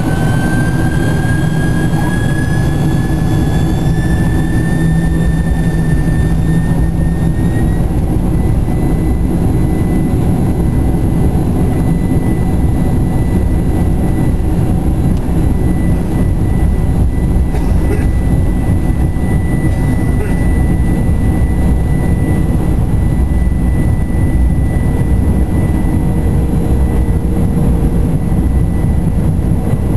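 Boeing 747-400's General Electric CF6-80C2 turbofans heard from inside the cabin, spooling up to takeoff thrust: a whine rises in pitch over the first eight seconds or so, then holds steady. Under it runs a loud, steady rumble as the jet rolls down the runway.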